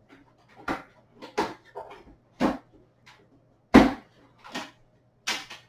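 Boxes and packaging being moved about and set down: a series of about seven separate knocks and thuds, the loudest a little past the middle.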